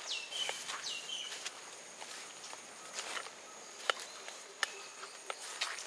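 Footsteps on wet ground, with scattered sharp ticks of water dripping from leaves, under a steady high insect drone. Near the start a bird gives two falling whistled calls that level off.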